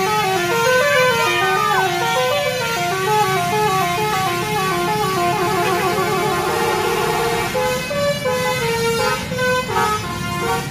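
Basuri, a tour bus's musical multi-tone horn, playing a melody of quick stepped notes over a low engine hum.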